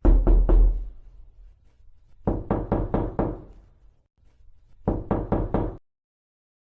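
Knocking on a door in three rapid groups: three quick knocks, then a run of about five, then another run of about five, each knock carrying a heavy low thump. The last group cuts off suddenly.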